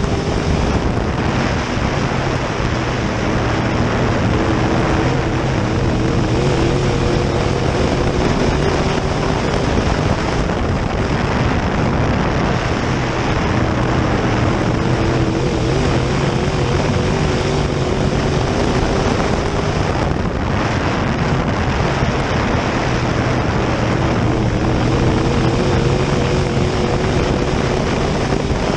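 Open-wheel modified race car's V8 engine at racing speed, heard from inside the cockpit under a steady rush of wind and dirt-track tyre noise. The engine note climbs and drops back about every nine or ten seconds as the car laps.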